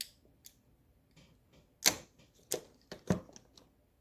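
Several sharp, separate clicks and taps of small makeup items being handled, the loudest a little under two seconds in and a quicker run of them over the following second and a half.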